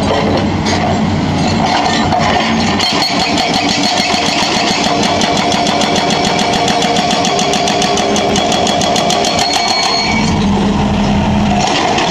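Hydraulic breaker on a Hitachi Zaxis 210F excavator hammering a concrete road slab with rapid, even blows from about three seconds in until about two seconds before the end, over the excavator's diesel engine running. Before and after the hammering only the engine is heard.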